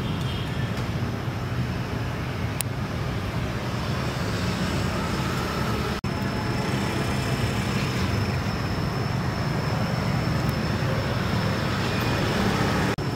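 Steady low outdoor rumble with a faint thin high tone over it, dropping out for an instant about six seconds in.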